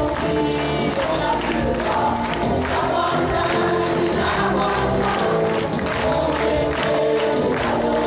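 A choir of teenagers singing together into microphones, backed by a live band with electric guitars and a steady beat.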